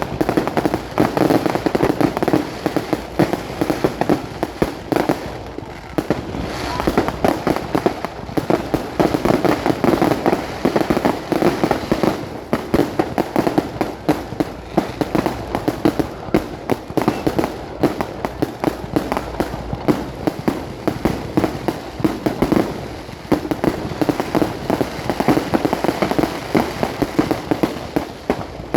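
Fireworks going off in a dense, continuous barrage of rapid bangs and crackles, loud throughout with only brief lulls.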